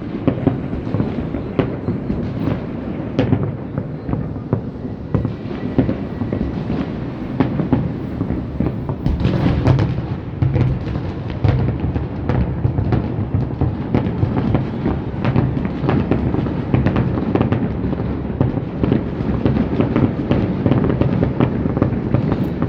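A fireworks display with many shows firing at once: a continuous barrage of booms and crackling pops over a rolling low rumble, thickest about nine seconds in.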